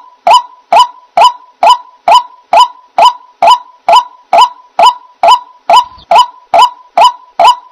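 White-breasted waterhen calling: one loud, honking note repeated evenly about twice a second, each note starting sharply and quickly fading.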